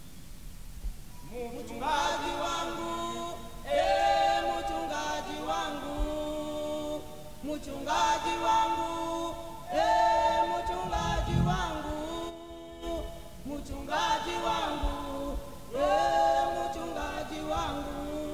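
Men's and women's voices singing unaccompanied, a worship song in phrases of about two seconds with short breaks between them, starting about a second and a half in.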